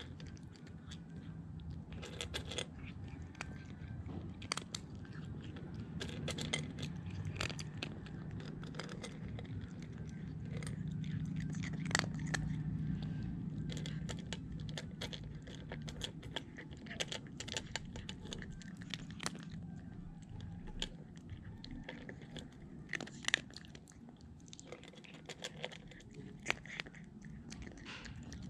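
Young cat crunching dry kibble from a stainless steel bowl: irregular crunches and chewing clicks, with a low hum swelling and fading in the middle.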